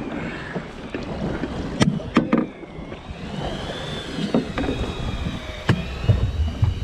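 Wind and boat noise on an aluminium fishing boat, with several sharp knocks as a freshly caught halibut is lifted over the rail and lands on the metal deck.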